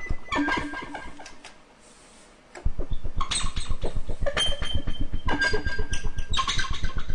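Synthesizer played live. A held sound fades away over the first two and a half seconds. Then a rapidly throbbing, buzzy tone starts suddenly, its pitch wobbled by a deep LFO so that it sounds almost like an engine, with bright higher notes played over it in short phrases about once a second.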